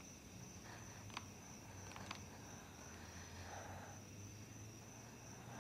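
Near silence: faint soundtrack room tone with a thin steady high whine, two faint ticks about a second apart, and soft quiet breathing.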